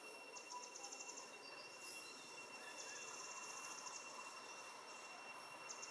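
Faint forest ambience of insects: a steady high-pitched drone with three short, rapid pulsed trills spaced a couple of seconds apart.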